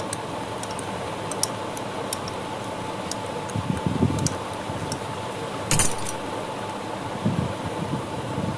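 Metal tool clinking and rattling as a 13 mm box spanner works the flange bolts off a Bajaj auto rickshaw two-stroke engine's gear case, with a sharp metal knock a little before six seconds in. A steady hum runs underneath.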